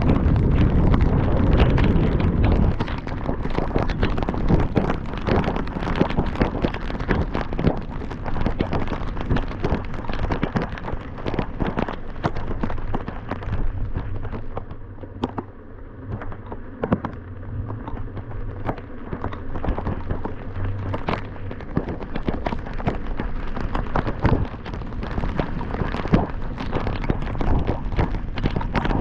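Heavy rain striking a moving car and the camera, a dense crackle of close raindrop pops over a low rumble of wind and road noise. The rumble is heaviest in the first couple of seconds, and the rain eases a little about halfway through before picking up again.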